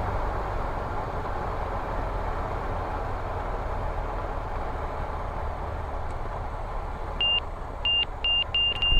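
Light aircraft's engine drone and rushing air in the cabin on final approach. From about seven seconds in, the stall warning horn sounds in short beeps, then holds a steady tone near the end as the plane slows toward touchdown.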